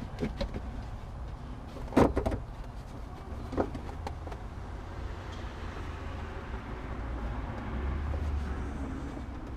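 Knocks and a loud clunk of rear-seat interior trim being handled and pulled loose in a car, followed by a steady low rumble that swells near the end.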